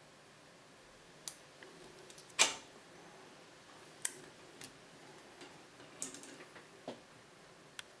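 Sharp, scattered metallic clicks and taps from a hook pick and tension wrench working in a small brass Yale padlock and from the lock being handled, the loudest about two and a half seconds in and a quick cluster of clicks about six seconds in.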